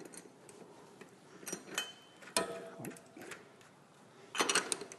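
Scattered light metallic clicks and clinks of a locking nut being threaded and gently done up on a tricycle's rear axle, with a denser run of clicks near the end.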